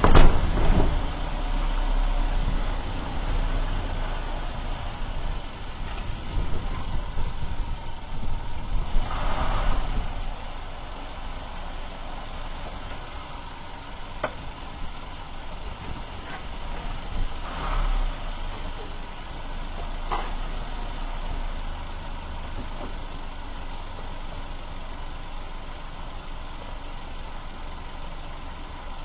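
Perodua Myvi driving, heard from beneath the car by the front suspension: steady road and tyre rumble, with a few short single clicks or knocks.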